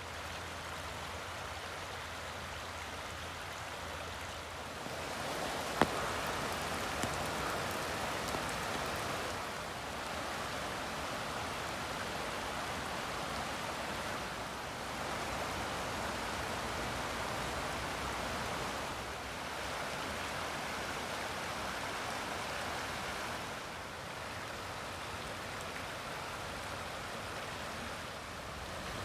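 Steady rush of running water from a forest creek, stepping up or down in level every four to five seconds. A single sharp click comes about six seconds in.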